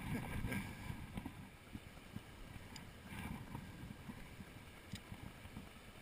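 Rushing water of a mountain torrent, a low steady rumble, with two light clicks about three and five seconds in.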